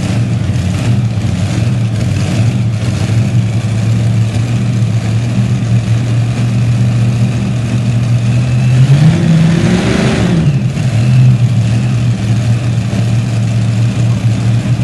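Light modified pulling tractor's engines idling at the start line, with one short rev that rises and falls back about nine seconds in.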